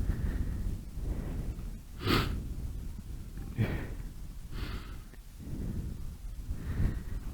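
A person breathing hard after exertion, with a few loud breaths about two, three and a half, four and a half and seven seconds in, over a steady low rumble.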